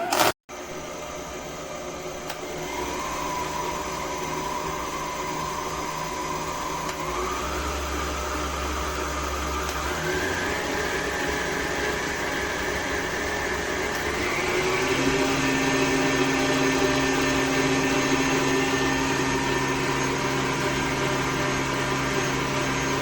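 COOKLEE 660 W electric stand mixer motor running with a steady whine. It is switched up to higher speeds three times, and the pitch steps up each time, getting louder at the last step.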